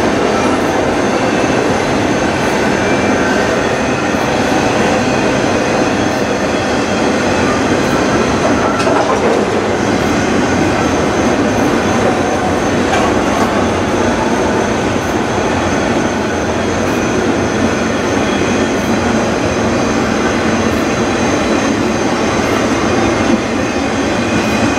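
Autorack freight cars rolling past: a steady rumble of steel wheels on rail, with regular clicks as the wheels cross rail joints.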